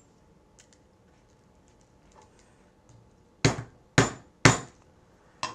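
Three sharp hammer blows about half a second apart on a rivet setter, driving a cap rivet through layered leather, followed by a lighter tap near the end; faint clicks of the parts being handled come before.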